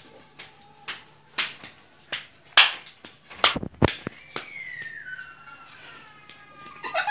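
Finger snapping, about two sharp snaps a second, keeping a beat. Over the second half a drawn-out whistle-like tone slides down in pitch.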